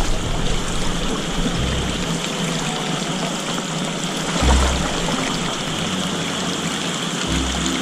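Shallow channel water running and sloshing around a wader's legs, with three low thuds a few seconds apart as he steps through the water.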